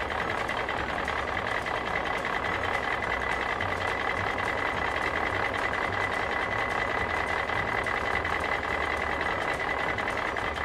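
Truck engine sound effect running steadily, with a low pulsing engine note and a constant high whine on top, while a toy tanker truck is pushed along.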